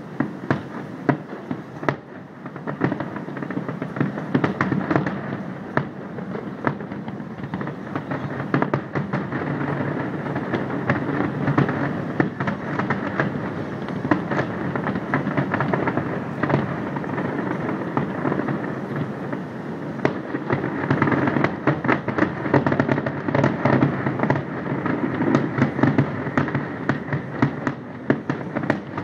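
Fireworks display: a continuous rumble of shell bursts dotted with many sharp pops and crackles, growing denser about a third of the way in and again through the last third.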